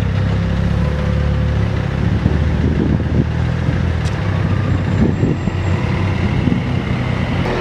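Street traffic, mainly a large vehicle's engine running with a steady low rumble.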